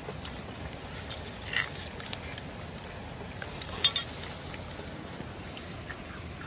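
Snail shells clicking and clinking against a wire grill rack as they are picked up and handled. A few separate clicks, the sharpest just before four seconds in, over a steady low hiss.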